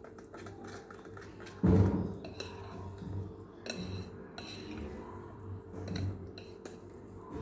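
Kitchen utensil clinking and scraping against a mixing bowl while flour is worked into cake batter, with scattered light ticks and one louder thump about two seconds in.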